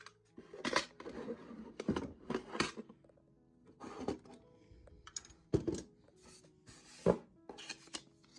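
Small desk items being handled and set down on a wooden desktop: a string of knocks and clatter from plastic and metal odds and ends, with rustling in between. The loudest knock comes about seven seconds in. Soft background music plays underneath.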